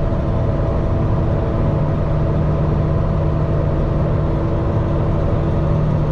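Peterbilt semi truck's diesel engine running at a steady speed while the truck is under way, heard from inside the cab.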